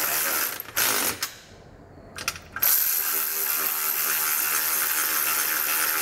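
Cordless electric ratchet with a 13 mm socket whirring as it runs nylock nuts down onto running-board bolts. It runs, stops about half a second in, gives a couple of short bursts, then runs steadily again for the last three and a half seconds.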